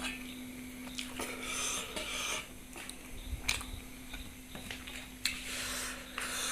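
Eating at the table: scattered clicks and scrapes of tableware on a plate, with patches of chewing, over a faint steady hum.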